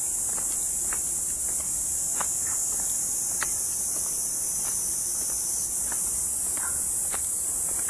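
Dense, steady high-pitched insect chorus, with light footsteps on a stone path as irregular soft clicks about once a second.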